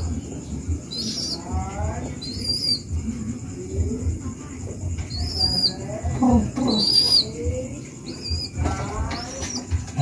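Baby pigeon's high, squeaky begging calls: short arched squeaks roughly once a second, mixed with some lower falling notes.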